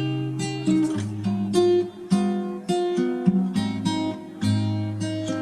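Background music: acoustic guitar strummed and plucked, with steady chords and a bass line.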